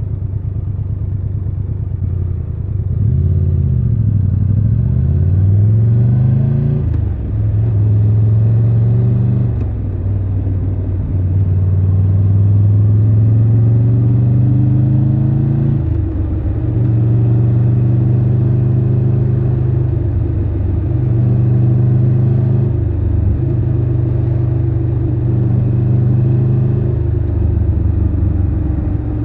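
Triumph Tiger 1200 Rally Pro's three-cylinder engine running under way, heard from the rider's seat. The engine note climbs and drops repeatedly, with about five or six short dips as the throttle closes for gear changes.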